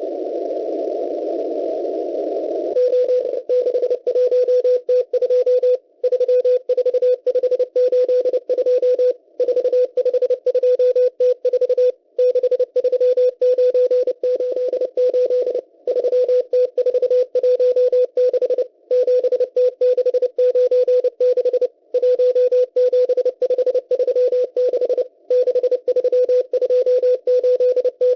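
Morse code from the M12 number station, received on a shortwave receiver: a steady tone of about 500 Hz keyed fast in dots and dashes, sending numbers in groups split by short pauses about every three seconds. For the first few seconds there is only the receiver's band hiss, heard through a narrow filter, before the keying starts.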